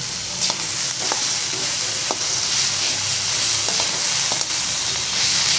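Chopped vegetables sizzling in hot oil in a metal kadai while a flat spatula stirs them, with half a dozen sharp clicks of the spatula against the pan.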